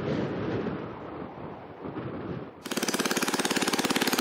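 Small motorboat's engine running with a loud, fast, even putter that cuts in suddenly about two-thirds of the way through. Before it there is only a softer outdoor noise.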